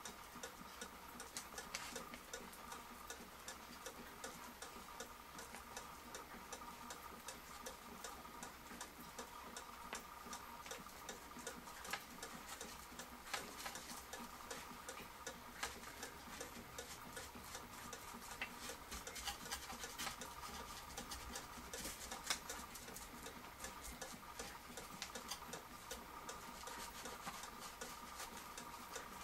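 Faint, irregular light clicks and ticks over a steady faint high hum.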